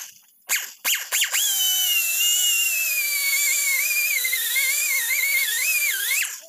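Die grinder with a mounted grinding stone grinding inside a truck steering knuckle's kingpin bore. It gives a few short blips of the trigger, then about a second in settles into a steady high whine that wavers and slowly drops in pitch under load, stopping shortly before the end.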